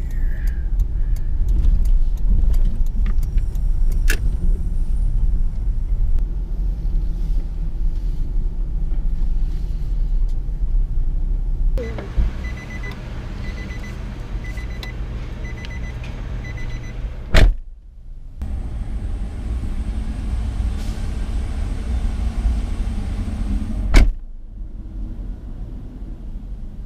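Steady low road and engine rumble inside a moving car's cabin. About halfway through the rumble drops, and a repeated electronic ding sounds about one and a half times a second for several seconds. Two sharp clicks follow a few seconds apart.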